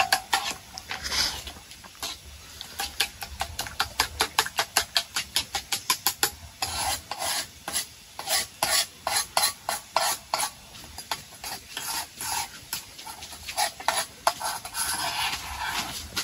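A spoon scraping and tapping against a frying pan, several strokes a second, as beaten eggs are stirred over a gas burner, with the eggs sizzling underneath.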